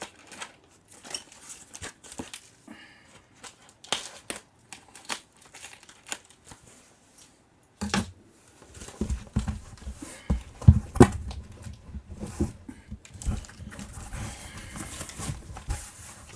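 Packaging being unwrapped by hand: crinkling and tearing of wrapping with scattered clicks and taps, getting busier about halfway through, with heavier thumps and rustling as the contents are handled.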